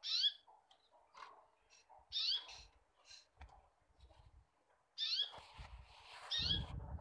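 A bird chirping in four short calls of quick falling high notes, at the start, about two seconds in, and twice near the end. Soft low knocks and rubbing from cream being spread and a saucepan being handled come in between and near the end.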